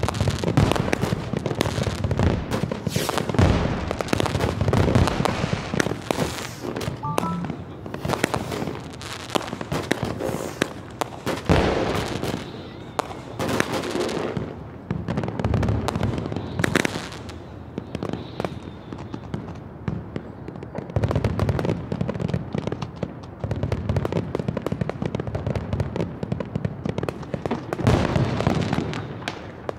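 Fireworks going off: continuous crackling with repeated deep booms every few seconds.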